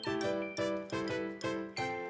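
Light, cheerful background music: a melody of short notes struck about three a second, each fading quickly.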